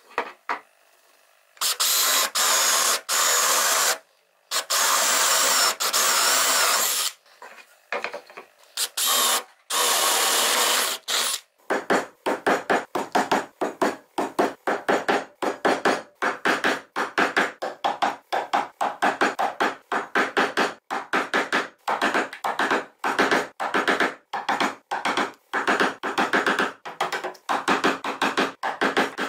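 An electric drill boring into wood in three long bursts. From about twelve seconds in it gives way to a quick run of sharp knocks, several a second, as a chisel chops the round hole out into a square mortise.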